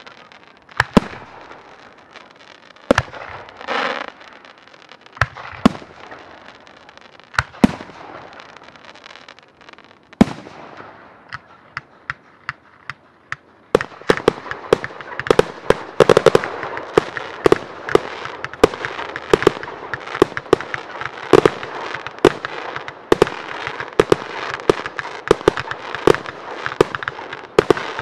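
Aerial fireworks display. Single sharp bangs come a second or two apart at first, then about halfway through it turns into a dense barrage of rapid bangs and crackling.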